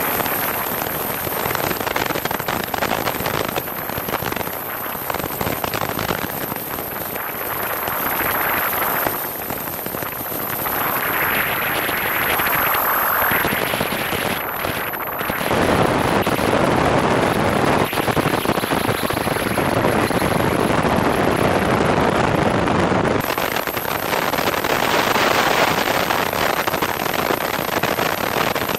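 Wind buffeting and rushing over a camera mounted under a Piper Cherokee's wing, mixed with the plane's engine noise, as a dense crackling roar. The noise changes suddenly in character twice, about halfway through and again a few seconds later, and is loudest in the middle.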